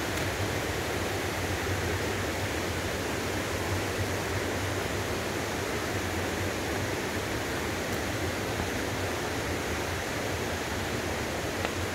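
Steady rush of flowing water, an even noise that holds unchanged throughout.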